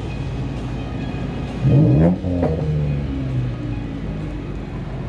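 Car engine revving up hard about two seconds in, cutting briefly, then revving again before the pitch falls away, over a steady low engine rumble.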